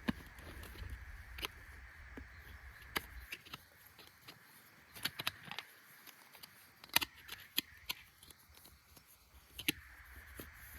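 Irregular clicks, knocks and light clatter of gear being handled, with a few louder clicks in clusters, over a faint steady background hiss.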